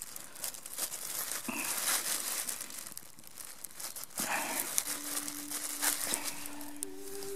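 A thin plastic bag crinkles as a knife slices through a sausage resting on it. About five seconds in, soft music with long held notes fades in underneath.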